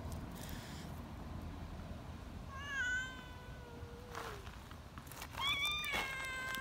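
Young cat giving two long, shrill meows, the first about two and a half seconds in and the second near the end.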